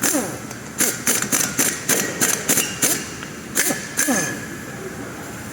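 A run of sharp knocks, about nine in quick succession followed by two more a moment later, some with a short falling ring after them.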